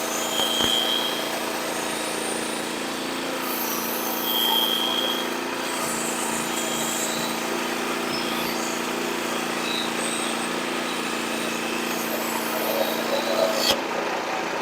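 Frontier portable bandsaw sawmill's engine running steadily with the band blade sawing through a log.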